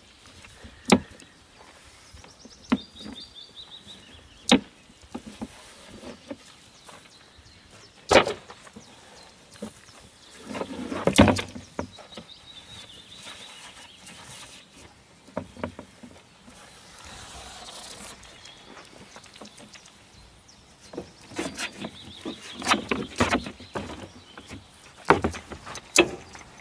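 Irregular knocks and metallic clanks from handling a Norwood LM29 sawmill's parts while the band blade is changed. The loudest strike comes about eleven seconds in, with a busy run of knocks near the end.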